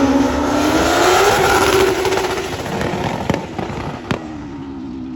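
Drag racing motorcycle engine at full throttle on a run, its note rising in pitch over the first second or two and then fading as it goes away. Two sharp bangs near the end, then a steadier, quieter engine note.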